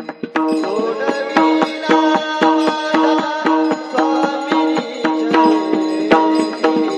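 Marathi devotional kirtan music: a steady held drone under a melody that slides in pitch, with evenly spaced hand-drum strokes keeping the beat.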